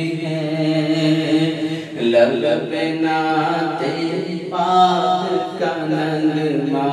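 A man singing a naat, an Urdu devotional poem in praise of the Prophet, without instruments, drawing out long melodic notes over a steady low drone.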